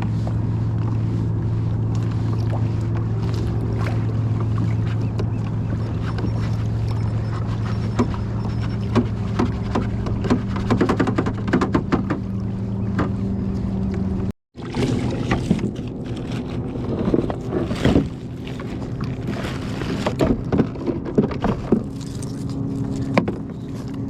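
Boat engine running steadily, with scattered knocks and clatter over it. Partway through there is a brief cut, after which the engine hum sits at a different pitch and the knocking comes more often.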